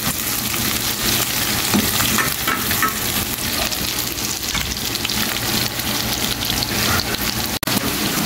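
Chicken pieces with garlic, onion and ginger sizzling in hot oil in a pan, stirred and scraped about with a spatula. The steady frying hiss cuts out for an instant near the end.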